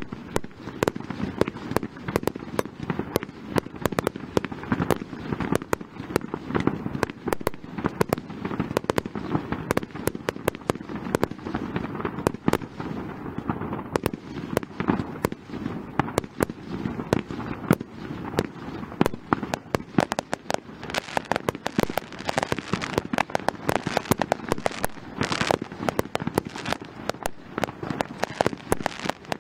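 Fireworks display: aerial shells bursting in a rapid, unbroken run of bangs and crackles, several a second.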